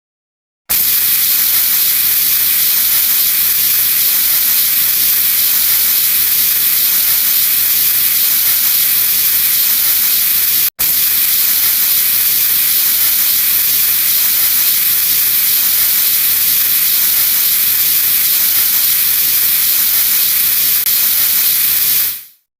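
Steady hiss of a pressurised spray, starting about a second in, with a split-second break near the middle, fading out near the end.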